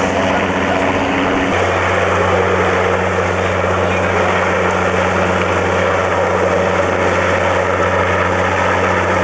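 Westland Wessex rescue helicopter hovering low overhead: a steady, loud rotor and turbine drone with a constant low hum, which shifts slightly about a second and a half in.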